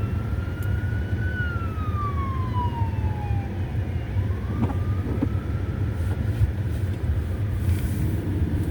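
Emergency vehicle siren wailing: a slow rise, then a fall over about two seconds, then a rise again. It sits over a steady low rumble.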